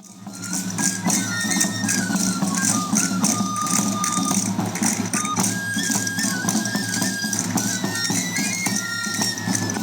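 Traditional Hurdes pipe-and-tabor music: a three-hole pipe (gaita) plays a melody of stepped, held notes over the steady, rattling beat of a tamboril. It fades in over the first second.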